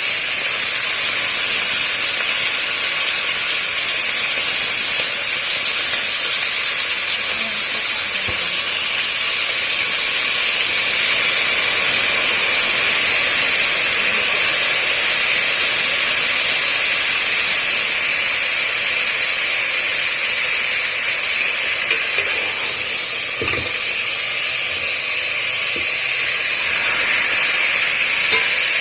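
Chicken pieces sizzling in hot oil with sautéed garlic, onion and ginger in a cooking pot, a steady loud hiss. One faint knock comes about 23 seconds in.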